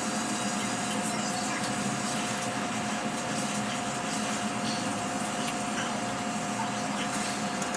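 A small fan or blower running steadily, a constant whir with a faint steady tone in it and a few light ticks.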